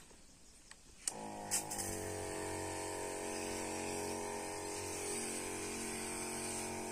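Electric pump of a battery-powered knapsack sprayer switching on with a click about a second in, then running with a steady hum while the lance sprays.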